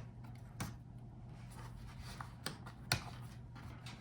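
Light clicks and taps of a laptop's plastic and metal parts being handled as the screen assembly is lifted off the base, a few sharper clicks standing out, over a faint steady hum.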